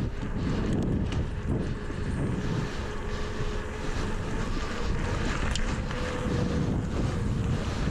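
Strong wind buffeting the microphone during a bike ride, a constant fluttering rumble, with a faint steady hum underneath.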